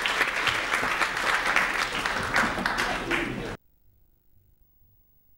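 Audience applauding with many hands clapping, cutting off abruptly about three and a half seconds in, followed by near silence.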